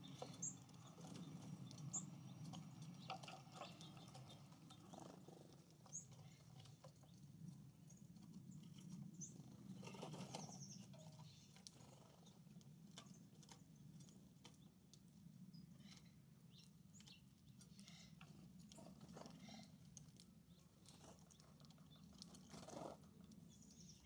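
Faint outdoor sound at a busy bird feeder: a few short, high chirps from small songbirds and scattered light clicks and taps of birds pecking at seed, over a low steady rumble. Two brief louder rustles come about ten seconds in and near the end.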